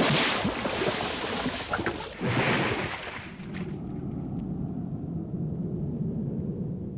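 A loud water splash as something plunges into a lake, then a second splash about two seconds later, followed by a steady low rushing sound like wind.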